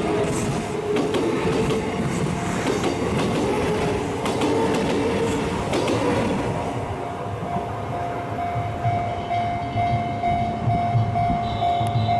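Kintetsu Minami Osaka Line train passing over a level crossing, its wheels clattering on the rails. The rumble thins about seven seconds in, and a steady held tone starts up and holds to the end.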